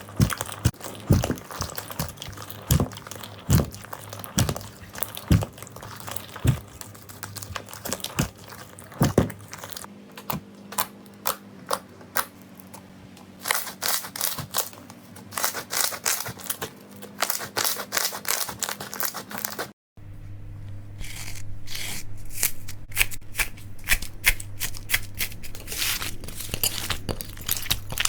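Slime being squeezed, poked and stretched by hand, making a run of crisp crackles, crunches and pops with soft low thumps in the first part. After a short break about two-thirds of the way in, the crackling goes on over a steady low hum.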